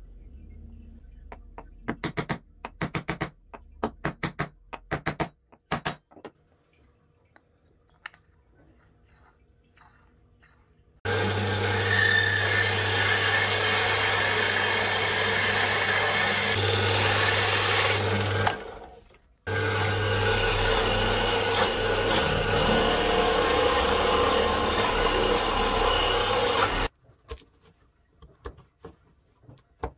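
Drill press running with a hole saw boring into a stacked plywood block, in two runs of about seven seconds each with a short stop between. Light taps and clicks of hand work come before it, and a few light chisel clicks after.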